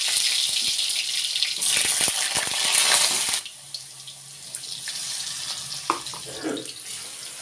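Cut potato pieces hitting hot oil in a wok and sizzling loudly. After about three and a half seconds the sizzle drops to a quieter, steady frying hiss.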